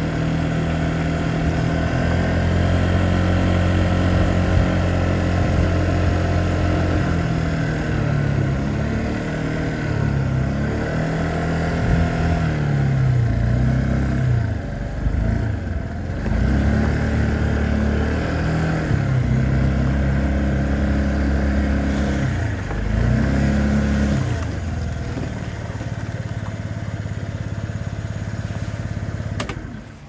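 Honda Giorno 49cc four-stroke scooter engine running, its pitch falling and rising several times as it slows and speeds up, then settling to a steady idle for the last few seconds before it cuts off at the very end.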